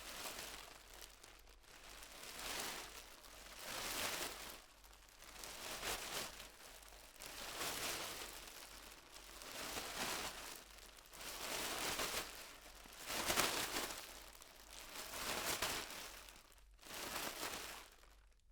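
Plastic bag carried while walking, crinkling and rustling in rhythmic swells about every second and a half as it swings with the steps, heard from a medium distance.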